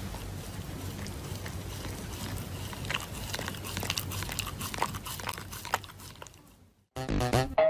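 A puppy chewing and crunching on something: irregular sharp crunches and clicks over a steady hiss, fading out about six and a half seconds in. Electronic music starts near the end.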